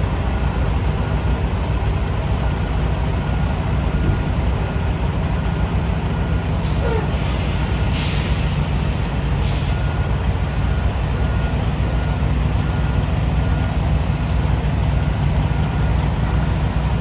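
Diesel engine of a semi-truck pulling a trailer, running low and steady as the truck creeps across the lot, with the air brakes hissing in short bursts about seven, eight and nine and a half seconds in. A faint, evenly repeating beep sounds in the background.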